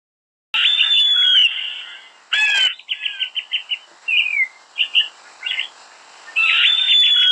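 Bird calls: a rapid series of chirps and whistled glides that starts abruptly about half a second in, loud at first, then broken into shorter chirps, with a second loud run near the end.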